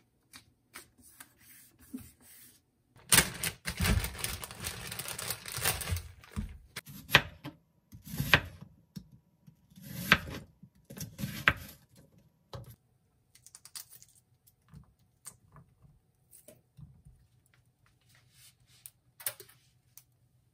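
Kitchen prep handling sounds: a dense run of rustling and clatter for about three seconds, then a handful of separate knife strokes cutting an onion onto a plastic cutting board, then a few faint light taps.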